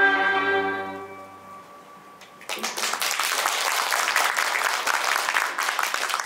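A Chinese traditional instrument ensemble holds its final chord, which fades away within about a second and a half. After a short hush, audience applause breaks out about two and a half seconds in and carries on.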